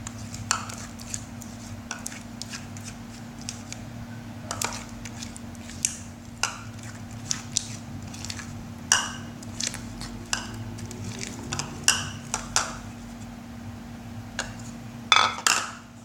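A stirring utensil clinking and scraping against a bowl in irregular knocks while mixing glue-and-mouthwash slime that is nearly set. A steady low hum runs underneath.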